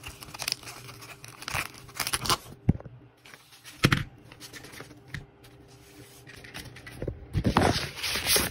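A nylon-and-mesh rod bag being opened and handled: irregular rustling and scraping of the fabric in short bursts, louder near the end.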